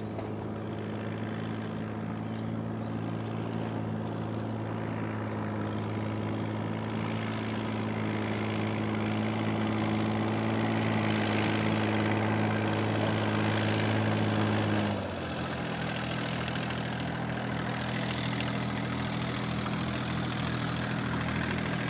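A motorboat engine running steadily and slowly growing louder, then easing back about fifteen seconds in and running on at a lower speed.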